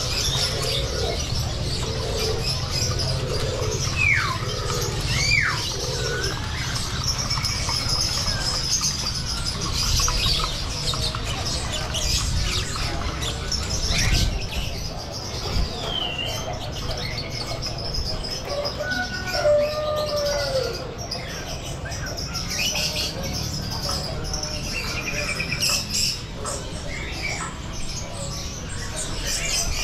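Many caged birds chirping and whistling at once, with two sharp falling whistles a few seconds in, over a steady low background rumble.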